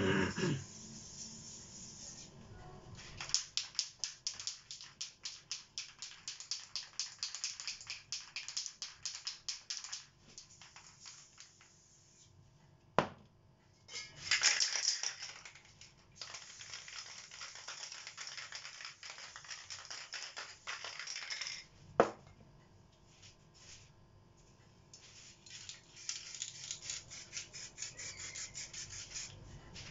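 Aerosol spray paint cans hissing, sometimes in quick short bursts several times a second and sometimes in longer steady sprays, with two sharp knocks between sprays.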